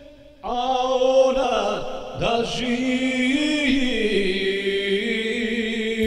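Electronic keyboard music: after a brief quiet dip, slow held chords with a choir-like voice come in about half a second in, with no drum beat.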